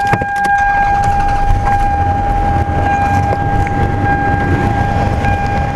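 A 1993 Toyota Camry's dashboard warning buzzer sounds one steady, unbroken tone, over the low running of the car's engine, and stops right at the end.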